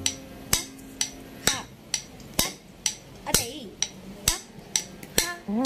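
Sharp wooden strikes of a stick on a beating block (thattukazhi) keeping a steady dance beat about twice a second, with short called syllables between some strikes and a voice starting a sung note near the end.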